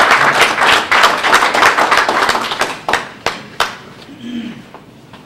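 Audience applauding, the clapping dying away about three seconds in with a few last single claps, followed by faint voices.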